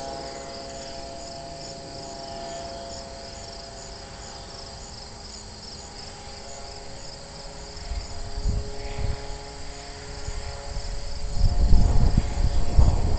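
Insects chirping in a fast, steady pulse over a steady distant drone. From about eight seconds in, wind buffeting on the microphone rises and becomes the loudest sound near the end.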